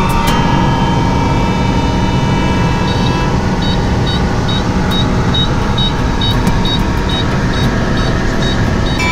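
Single-engine propeller airplane's engine and airflow droning steadily inside the cockpit in cruise flight. From about three seconds in, a faint high pip repeats about five times every two seconds over the drone.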